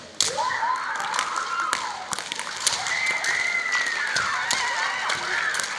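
Female high-school kendo fencers giving long, high-pitched kiai cries that rise and fall in pitch. Sharp clacks of bamboo shinai and foot stamps on the wooden floor run through it.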